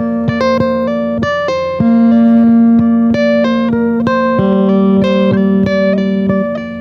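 Background music: a plucked string instrument plays a quick melody over a held low note that changes pitch twice.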